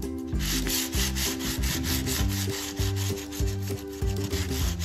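Sandpaper on a flat wooden block rubbed back and forth in quick strokes across the wire frets of a ukulele neck, leveling them so no fret sits higher than another. Background music plays underneath.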